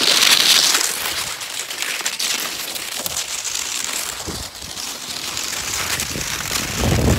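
Inovik cross-country skis sliding over wet, thawing spring snow: a steady scraping hiss with many small crunches and crackles. A low rumble comes in near the end.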